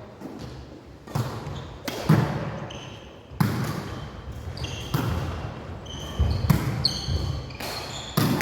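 Volleyballs being struck by hands and arms in a pair passing and hitting drill, a sharp smack about every second that echoes around a gym hall.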